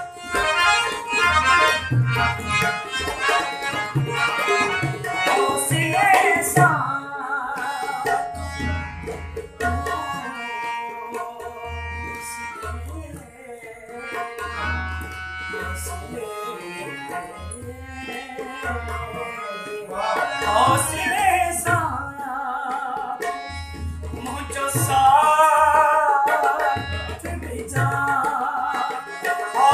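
Live harmonium and tabla music: the harmonium holds steady chords while the tabla's deep bass drum and higher drum keep a rhythm underneath. A man sings over them in phrases that come and go, loudest about two-thirds of the way in and near the end.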